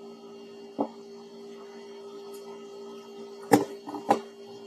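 A few short, sharp clicks and taps of small hard objects being handled while a lithium-ion battery is set up for a voltage test: one about a second in and two close together near the end, over a steady low hum.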